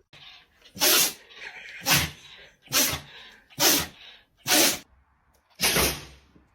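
A dog sneezing six times in a row, short sharp sneezes about one a second.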